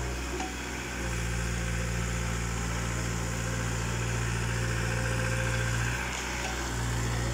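Small crawler excavator's diesel engine running steadily, its note and level dipping briefly twice, about half a second in and again about six seconds in.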